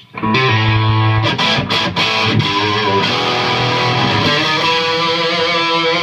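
Electric guitar, a custom Stratocaster, played loud through a Yerasov Bulldozer EL34 50-watt tube amp head into a Celestion Vintage 30 and Eminence loaded cabinet. It kicks in sharply just after the start with sustained, ringing chords and single notes.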